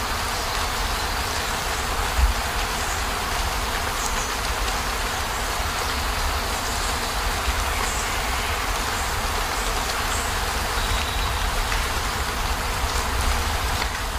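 Steady rain falling on a camper van's roof and windows, an even hiss with a continuous low rumble beneath it and a few faint drips ticking through.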